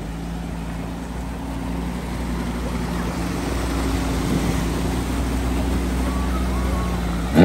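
Audi A3 hatchback wading slowly through a flooded ford: a steady low engine hum with water surging and sloshing around the car, growing louder as it comes close.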